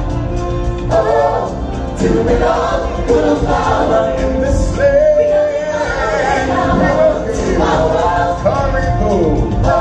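Several singers of a musical stage show singing together into microphones over backing music, with a full choir sound amplified through the venue's sound system.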